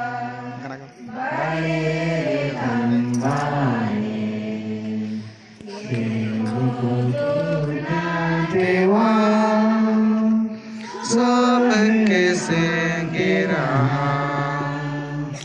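A group of voices chanting or singing together in long held notes, phrase after phrase, with short pauses between phrases.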